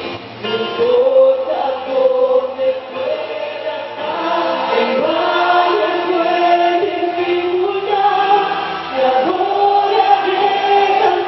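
A woman singing a Christian song through a handheld microphone over instrumental accompaniment, holding long notes that slide between pitches.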